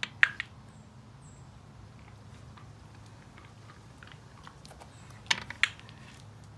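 Dog crunching pieces of dry dog food: a few sharp crunches just as it takes a piece from the hand, then another short cluster of crunches near the end.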